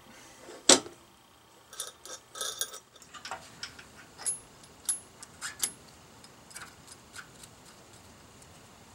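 Light clicks and clinks of suspension parts being handled and adjusted by hand: one sharp click about a second in, then scattered lighter clicks and a short rattle, thinning out toward the end.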